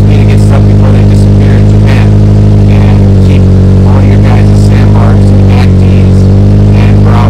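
Background music with sustained low bass notes that change pitch in steps a few times, and short higher accents over them.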